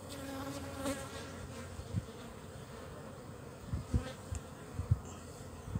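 Steady buzzing of a dense mass of Asian honey bees (Apis cerana) crawling on an open comb frame, with a few soft low thumps from handling.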